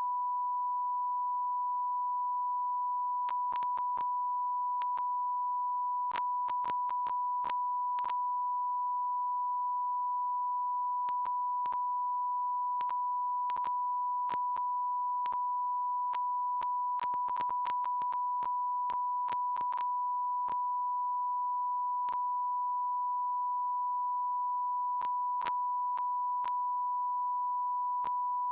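A continuous electronic beep: a single pure steady tone, held without a break or change in pitch or loudness, with faint clicks here and there.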